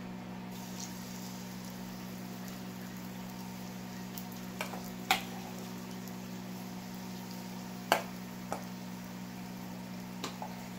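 Hot oil frying in a pot as spoonfuls of saltfish fritter batter go in, with several sharp clinks of a metal spoon against a stainless steel mixing bowl, the loudest about five and eight seconds in.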